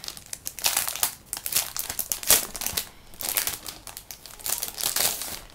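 Clear plastic wrapping crinkling in irregular clusters of sharp crackles as hands handle and work at a flat packet sealed in it.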